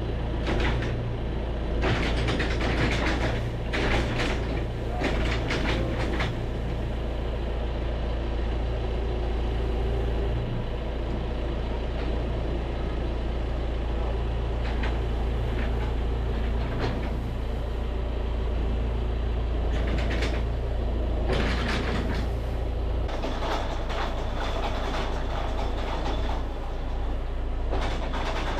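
Tractor engine running steadily at a low idle, its note shifting about three-quarters of the way through, with bursts of metallic clanking and rattling from the loader and its fork attachment.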